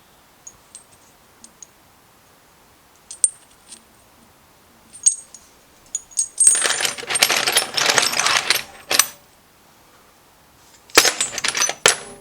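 Small steel lathe tool bits clinking and rattling against each other as they are rummaged through in a box: a few light clicks, then a long clatter about halfway through and another shorter one near the end.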